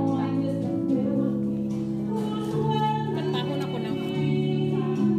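Background music with sustained chords.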